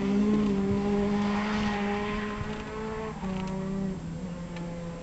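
Rally car engine running hard at high revs on a gravel special stage, the note rising slightly, dipping briefly about three seconds in, then carrying on while fading as the car moves away.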